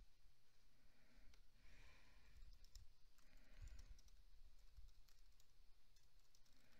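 Faint computer keyboard typing: scattered light key clicks over low room hum.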